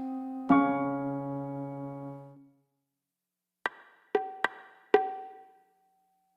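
Gentle video-game background music: a chord rings out and fades away, then after about a second's pause four short, plucked-sounding notes play, the last one ringing briefly.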